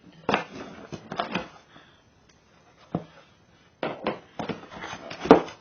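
Cardboard box and packaging being opened and handled: irregular rustling and scraping, with a sharp knock about five seconds in.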